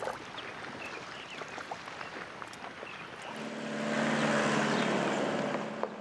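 Chevrolet pickup truck passing on a dirt road: a steady engine hum and tyre noise swell in about three seconds in, are loudest between four and five seconds, then fade as it drives off. Before it, a faint outdoor background with a few scattered short calls.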